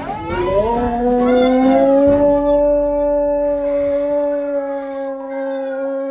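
Dog howling: a long, drawn-out howl that rises in pitch at first and then holds steady, with a second, lower steady tone held beneath it.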